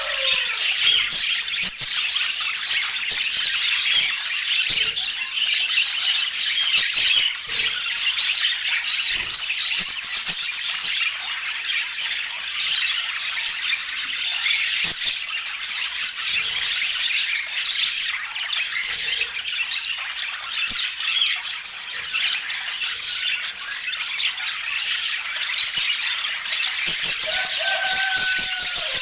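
Several budgerigars chattering continuously, with dense chirping and squawking.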